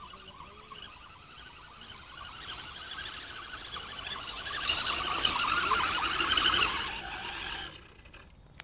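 Electric motor and drivetrain of an RC scale truck whining as it drives through a muddy puddle, with water splashing. The whine swells over several seconds, its pitch wavering, then drops away near the end. A sharp click at the very end.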